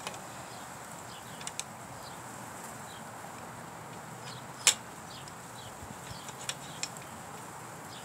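Scattered clicks and clinks of metal parts being handled and fitted on a moped's frame, with one sharper clink about halfway through.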